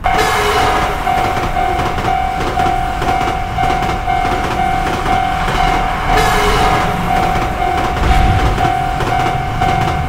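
Japanese level-crossing alarm ringing its 'kan-kan' at about two strokes a second, over the running noise of trains on the track, which surges again about six seconds in.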